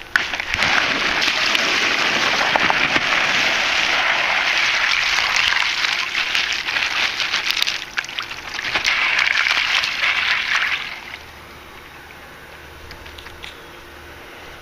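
Ice cubes poured from a plastic bag into a plastic bucket of water, a rushing clatter and splash. It runs for about seven seconds, pauses briefly, then a second, shorter pour follows.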